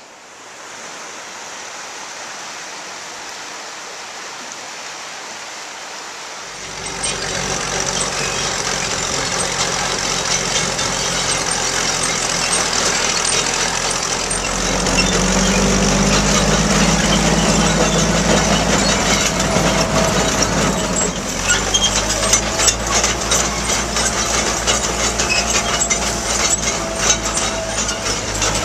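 1928 Lombard dump truck's engine running as the truck drives along, coming in about a quarter of the way through and getting louder around the middle. In the last third a fast, steady clatter of clicks rides over the engine sound.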